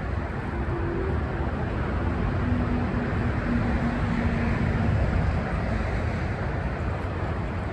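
Traffic noise from a motor vehicle going by, a steady rushing with a faint engine hum that swells a little in the middle and then eases off.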